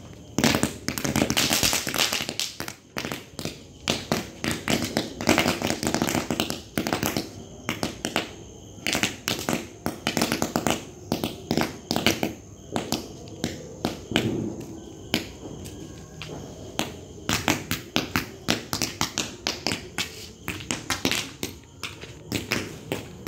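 Fireworks burning on the ground, crackling with many rapid, irregular sharp pops and snaps, and a few spells of spraying hiss in the first half.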